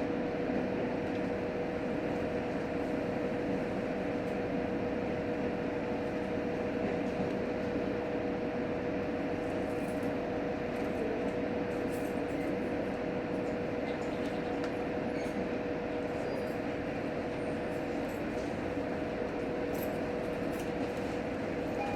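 Steady hum inside the cabin of an H100 diesel-electric railcar standing at a station, its engine idling, with two steady tones running through it.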